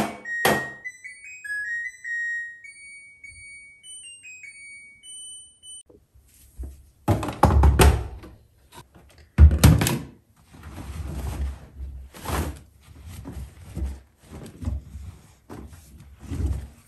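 LG Direct Drive washing machine playing its short end-of-cycle melody of electronic beeps, signalling that the wash is finished. It is followed by thunks and rustling as the door is opened and the damp laundry is pulled out of the drum.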